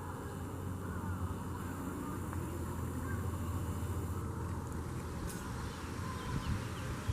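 Outdoor background: a steady low rumble with a few faint, short bird calls.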